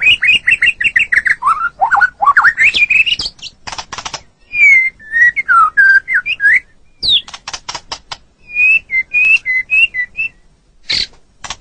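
White-rumped shama (murai batu) singing a varied song: a quick run of whistled notes, swooping whistles that slide up and down, and short bursts of sharp, dry clicking chatter, broken by brief pauses.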